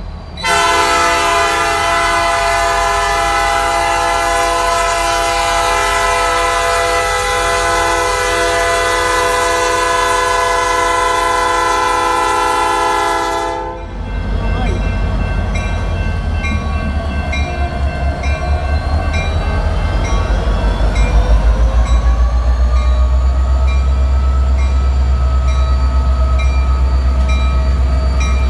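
Diesel locomotive's multi-tone air horn sounding one long blast for the grade crossing, cutting off about halfway through. The locomotive's diesel engine then runs loud with its pitch rising as it pulls its train through the crossing, with the crossing bell ringing steadily throughout.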